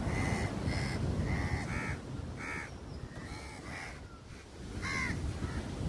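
A group of crows cawing over and over, squabbling among themselves. The calls thin out in the middle and pick up again near the end.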